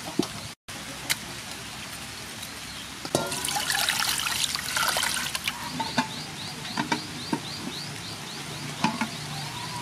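Water pouring into a metal pot of raw pork pieces, starting about three seconds in and lasting about two seconds. It is followed by a few sharp knocks as the pot is handled, with a rapid repeating chirp in the background.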